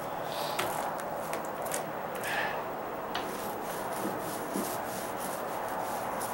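Paint roller on an extension pole rolled back and forth over rough OSB deck flooring: a steady rubbing of the paint-laden nap on the coarse board, with a few faint clicks.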